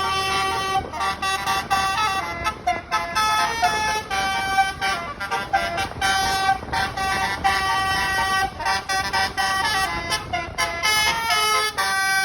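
Telolet bus horn, a 24-note multi-tone horn, playing a melody of short and held notes that step up and down in pitch.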